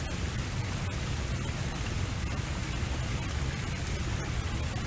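Steady outdoor background noise with a strong, even low rumble and a soft hiss above it.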